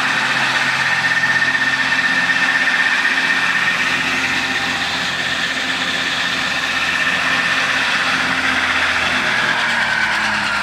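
Tractor engine running steadily at idle, with a high steady whine over it that dips slightly in pitch near the end.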